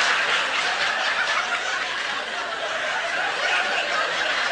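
Large audience laughing after a punchline, easing off over the first second and then holding steady.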